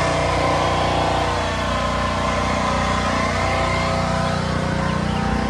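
A vehicle engine idling nearby: a steady, even hum with no change in speed.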